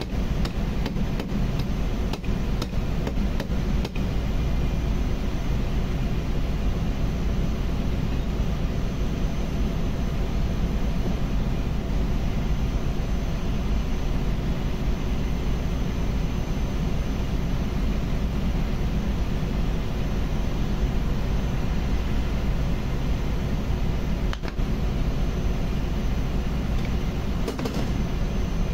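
Steady low drone of running ship's engine-room machinery, with a few faint clicks of metal parts being handled on the workbench in the first few seconds and again near the end.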